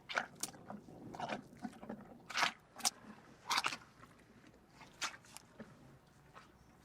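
An animal chewing food, with irregular sharp crunches about one or two a second.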